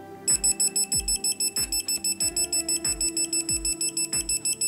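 Rapid, high-pitched electronic beeping from a digital torque wrench, starting about a third of a second in, as a cylinder head bolt is turned through its extra 90 degrees of the torque sequence. A steady beat of background music runs underneath.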